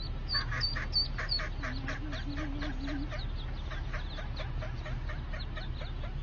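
Mallard ducklings peeping, many short high falling chirps several a second. The hen mallard quacks in a quick series during the first half, over a steady low rumble.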